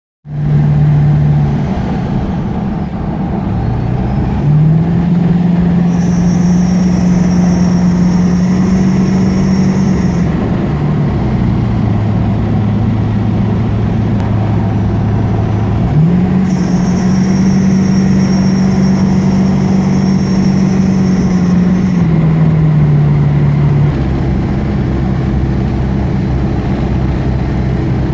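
A motor vehicle running, its engine note rising twice, each time held for several seconds and then dropping back. A high-pitched whine comes in while the engine note is up and goes away when it drops.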